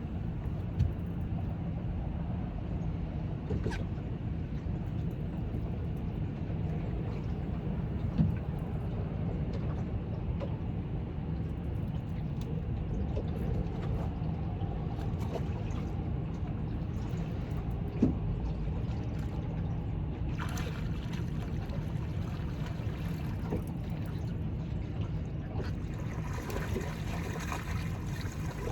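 A steady low rumble of wind and flowing water around a boat on a fast river, with a few sharp knocks against the boat. Water sloshes and trickles against the hull twice in the last third.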